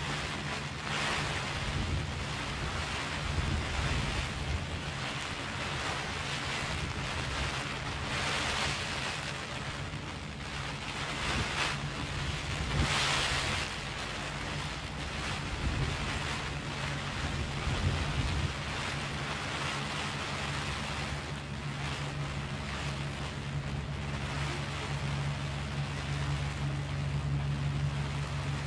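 Heavy rain falling on a clear plastic umbrella overhead: a dense, steady hiss that swells briefly several times, over a low steady rumble.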